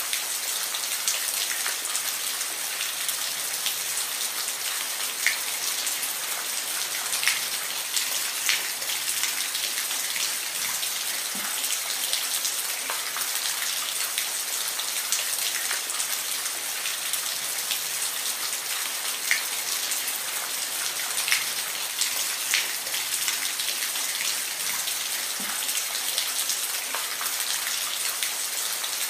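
Steady rain, an even hiss with scattered sharp drop ticks close by. No thunder is heard.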